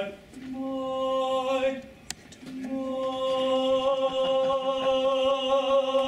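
Men's barbershop chorus singing a cappella in long held notes: a short sustained note, a brief breath just after 2 seconds, then a longer steady note held to the end.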